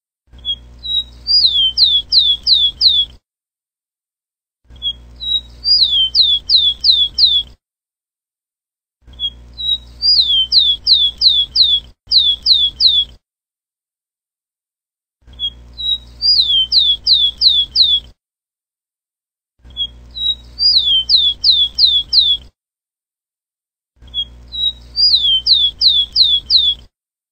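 Rufous-collared sparrow (tico-tico) singing the same short song seven times, about every four seconds. Each song is a couple of short opening notes, then a run of about five quick down-slurred whistles, with dead silence between songs.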